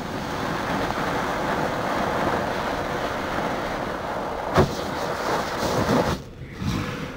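A burning black-powder fuse hisses steadily, then a black-powder charge goes off with a sharp bang a little over four and a half seconds in, followed by a weaker second burst about a second and a half later.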